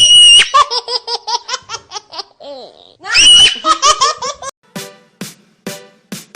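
A young child's laughter, twice: each bout opens with a high-pitched squeal and runs into quick giggling pulses, about eight a second. About two thirds of the way through, electronic music with a steady beat takes over.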